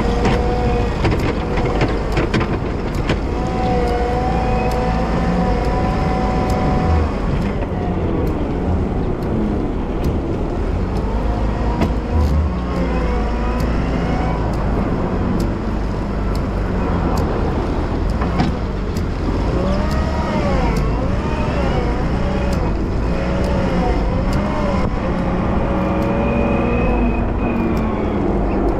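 Wheel loader running while plowing snow: a steady engine rumble with a whine that rises and falls in pitch as it works, and scattered sharp clicks and knocks.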